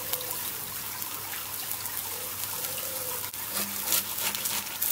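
An egg frying on an enamel-coated griddle plate over a gas grill: steady sizzling with scattered crackles.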